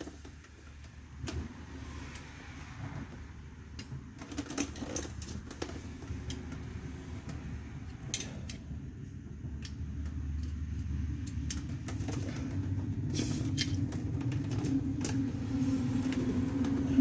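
Scattered light metal clicks and taps of hand work on rear drum-brake hardware as a parking-brake retaining clip is worked off. Under them runs a low engine-like rumble that grows louder through the second half.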